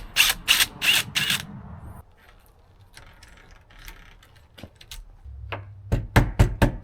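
Old deadbolt being taken apart by hand: a quick series of rasping mechanical strokes, about three a second, as its long through-bolts are worked out, then soft handling noise and several sharp metal clicks and knocks near the end as the lock parts are pulled free and handled.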